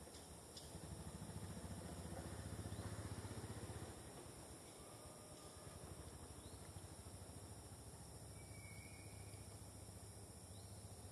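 Faint outdoor ambience: a low steady hum under a high, even insect drone, with one brief faint squeak about eight and a half seconds in.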